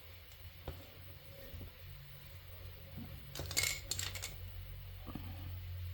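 Light clicks and clinks of small hard craft tools being handled on a desk, several together a little past halfway, over a steady low hum.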